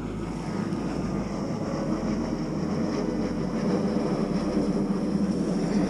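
Airplane passing overhead: a steady, distant engine rumble that grows slowly louder.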